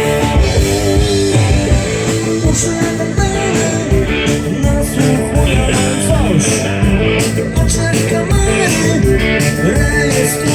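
Band music with electric guitar and drums playing a blues-rock song, with a voice singing partway through.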